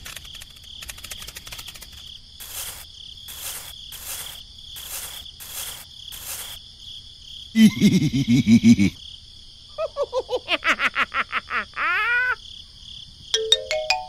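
Cartoon sound-effect track over a steady background of chirping crickets, with chirps about once a second. About halfway through comes a short, loud burst of a cartoon character's voice, then a quick run of springy pitched effects, and near the end a tone stepping upward.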